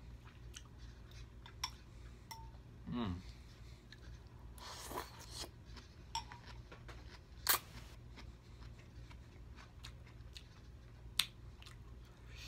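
Close-up eating sounds of a man eating pho noodles: a short hummed "mm" about 3 s in, a noisy slurp of noodles about 5 s in, and a few sharp clicks of mouth and fork, over a low steady hum.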